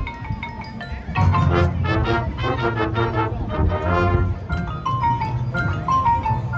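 High school marching band playing on the field, the music growing louder about a second in.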